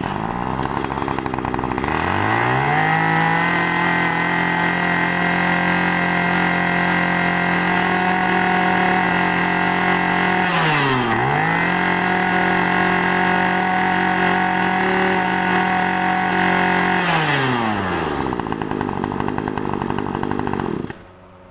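Small two-stroke brush cutter engine running under throttle. About two seconds in it revs up to a steady high speed, dips briefly and recovers about halfway, then drops back to idle near the end and is switched off just before the end.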